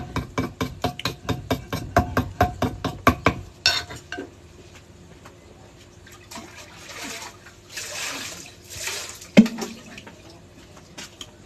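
A mortar being scraped: a quick run of short strokes at about four a second for the first three seconds or so, then a few slower, longer scraping strokes, and one sharp knock about nine seconds in.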